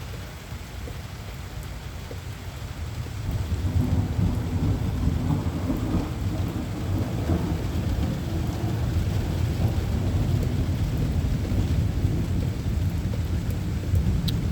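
Thunder rumbling over steady rain during a severe thunderstorm. The deep rumble swells about three seconds in and keeps rolling.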